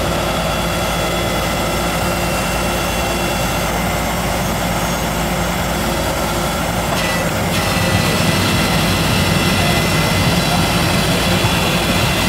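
A steady mechanical drone, like a large engine or machine running close by, with steady whining tones over it. It grows slightly louder about eight seconds in.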